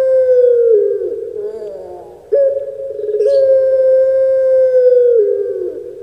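Puter pelung dove cooing its drawn-out anggungan. A long, steady, deep coo slides down about a second in, a few short rising notes follow, then a second long coo begins just after two seconds and holds for about three seconds before dropping away.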